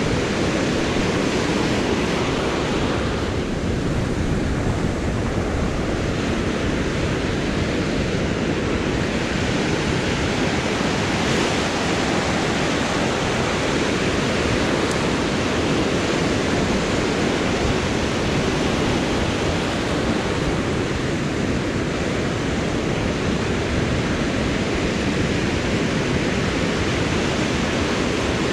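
Surf breaking and washing up the sand in a continuous rush, swelling a little now and then.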